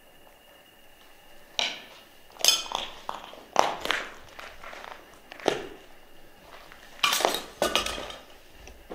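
Footsteps crunching over loose rubble, broken plaster and scrap, setting off a handful of sharp, irregular clinks and clatters of debris.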